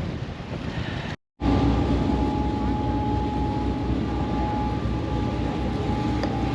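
Wind for about a second, then after a cut a tour boat's engine running steadily: a low, even drone with a steady hum on top.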